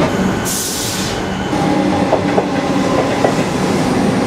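Electric suburban train running on the tracks with a steady rumble and clatter. A short burst of hissing air comes about half a second in, and brief higher squeals follow later.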